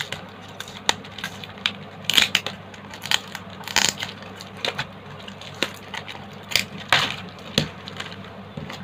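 Metallised plastic parcel wrapping and its cardboard box being pulled open by hand, crinkling and crackling in irregular sharp rustles, with louder clusters about two seconds in, near four seconds and near seven seconds.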